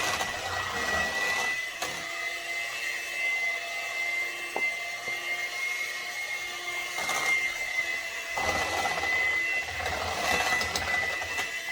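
Electric hand mixer running steadily with a constant high whine, beating Cool Whip in a bowl.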